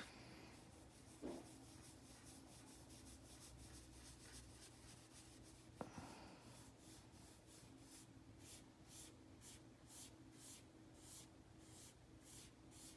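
Faint scratchy strokes of a sponge-tipped PanPastel applicator rubbing pastel onto paper, settling into a quick back-and-forth of about three strokes a second in the second half, with a small tick about six seconds in.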